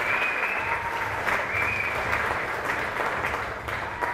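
Audience applauding steadily, a dense patter of many hands clapping, with a few high calls above the clapping.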